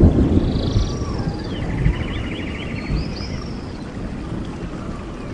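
Intro sound effect: a deep rumble, loudest at the start and slowly fading. Chirping, trilling calls sound over it between about one and three seconds in.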